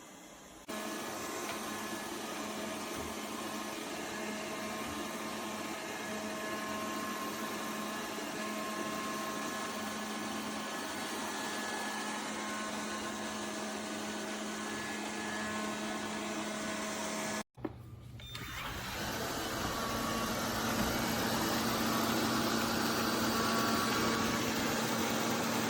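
Lefant M330 Pro robot vacuum running, a steady motor and fan hum with a few fixed tones. It breaks off for a moment about two-thirds through, then comes back a little different and grows louder.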